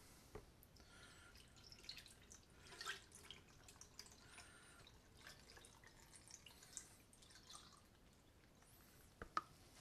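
Faint dripping and splashing of vanilla extract being poured from a plastic container into a blender jar packed with vanilla beans, with a light knock near the end.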